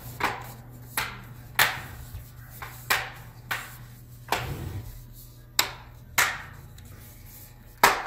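Bottom cover of an Acer Aspire 5 A515-43 laptop snapping back on as hands press along its edges: about ten sharp clicks at irregular intervals as its retaining clips seat one after another.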